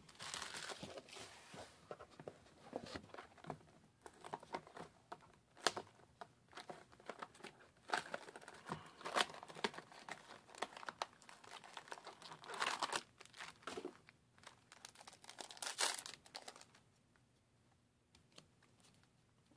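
Trading card booster pack wrappers crinkling and tearing open, with cards being handled, in irregular rustles and sharp clicks that die down near the end.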